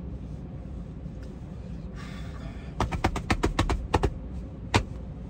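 A quick run of sharp clicks and clacks from about three seconds in, then two louder single knocks near the end, as camp cooking gear is handled. A steady low rumble sits underneath throughout.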